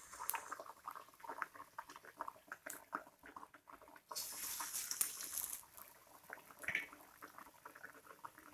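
Hot oil crackling faintly around battered potato slices (aloo pakoras) deep-frying in a kadhai. About four seconds in, another batter-coated slice is dropped in and a louder sizzle rises for a second or so.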